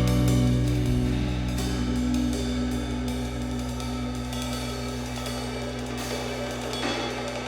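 Background music with a drum kit and cymbals over sustained tones, slowly fading down.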